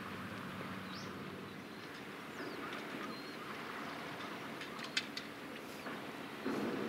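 Outdoor waterside ambience: a steady low engine hum for the first couple of seconds, a few short bird chirps, and a sharp click about five seconds in. A louder low rumble comes in near the end.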